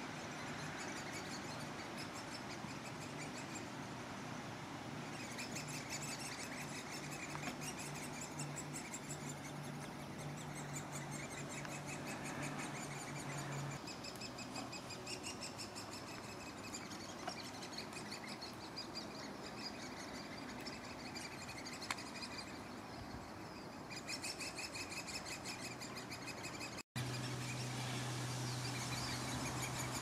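Great spotted woodpecker nestlings begging from inside the nest hole: a continuous, fast, high-pitched chatter of repeated calls.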